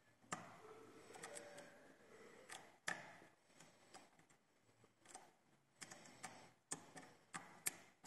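Faint irregular metallic clicks and light scraping of a lock pick working the pins of a Zeiss Ikon SK6 Sperrwelle lock cylinder, with the sharpest clicks about three seconds in and near the end.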